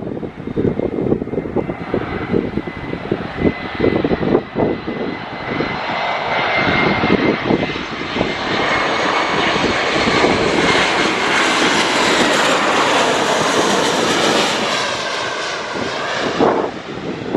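Airbus A321 jet engines on landing approach: a steady whine over a rushing roar that grows loudest as the airliner passes close by, the whine dropping slightly in pitch as it goes away. Wind buffets the microphone throughout.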